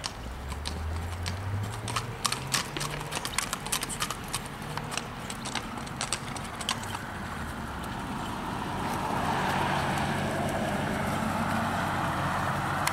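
Hoofbeats of ridden gaited walking horses moving at a fast gait over grass and dirt: a quick, uneven run of hoof clops through the first half. A steady rushing noise takes over in the second half.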